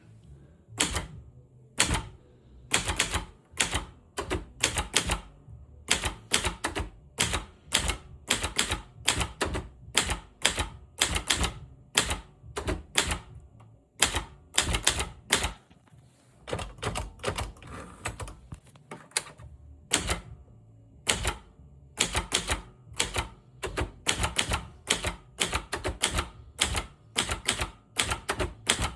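Imperial 220 manual portable typewriter being typed on: quick irregular runs of sharp key strikes clacking against the platen, broken by short pauses.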